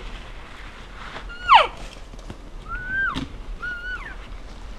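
Elk cow mews: a loud one about a second and a half in that slides steeply down in pitch, then two shorter mews near three and four seconds in that hold a tone and then drop off.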